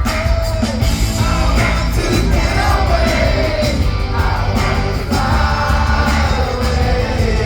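Live rock band playing with a male lead singer holding long, bending sung notes over a steady drum beat.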